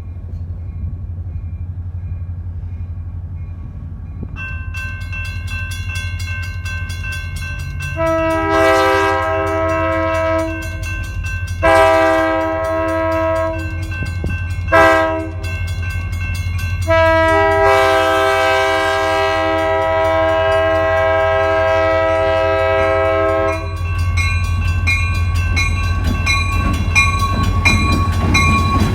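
Locomotive air horn sounding the grade-crossing pattern over a steady engine hum: two long blasts, one short blast, then a final long blast.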